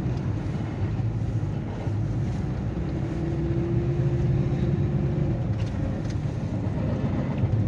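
Steady road and engine noise inside a car's cabin as it drives on a snow-covered highway, a low, even rumble. A faint steady hum joins in for a couple of seconds in the middle.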